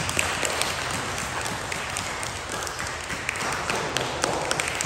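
Scattered hand clapping from a small audience, a steady patter of irregular claps as a belt is presented.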